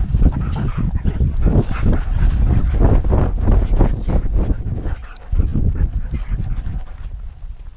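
Siberian husky breathing and panting as it moves, picked up by a GoPro strapped to its back, over a heavy low rumble from the harness-mounted camera jostling and wind on the microphone.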